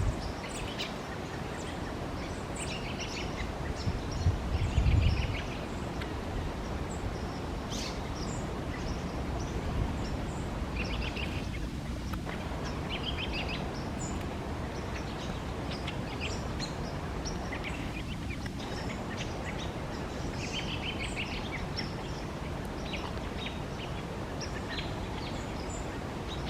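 White-breasted nuthatch calling: short calls in small clusters every few seconds, with scattered higher chirps, over a steady low background rumble that swells briefly about four seconds in.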